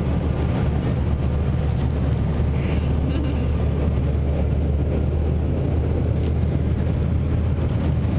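Airliner cabin noise: a steady, unbroken low rumble from the engines and airflow.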